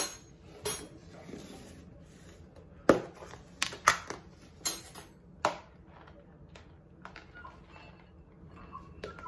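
Metal cutlery set down on the counter beside a ceramic bowl, then a run of sharp clicks and knocks as plastic food storage containers are handled and opened.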